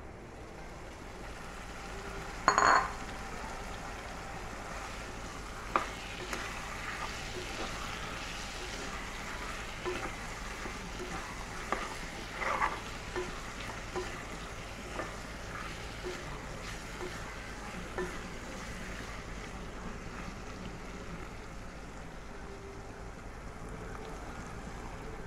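Dried Bombay duck (loitta shutki) and spices frying in oil in a pan, sizzling steadily, while a spatula stirs, knocking and scraping against the pan about once a second. There is one loud clank about two and a half seconds in.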